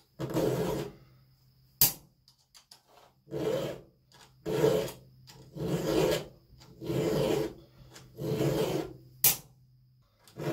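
Round chainsaw file rasping across the cutters of a Stihl 038's chain as it is sharpened by hand: six strokes, one and then, after a pause, five more about a second apart. A sharp click sounds about two seconds in and another near the end.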